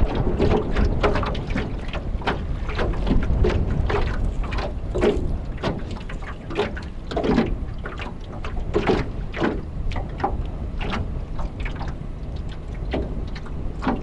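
Storm-driven choppy water slapping and splashing in irregular strikes, over a heavy rumble of strong wind buffeting the microphone.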